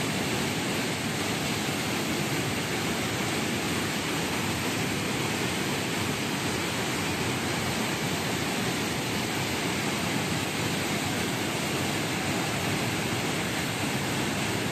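Steady rushing of turbulent floodwater pouring and churning through a sluice gate, a continuous loud wash of water noise.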